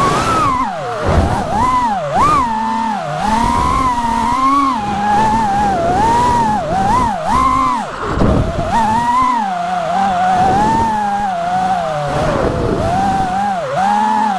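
5-inch FPV quadcopter's brushless motors whining, the pitch swooping up and down constantly as the throttle is worked through freestyle moves.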